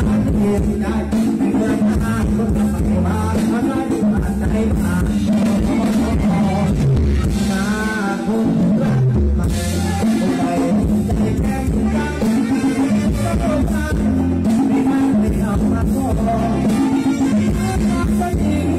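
Loud live band music for Thai ramwong dancing, with a singer over a steady drum beat, played through a stage PA.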